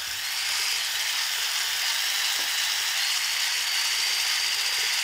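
Electric hand blender with a whisk attachment running steadily, beating butter and sugar together in a stainless steel bowl to cream them. A thin high motor whine that rises slightly sits over the whisk's even whirring.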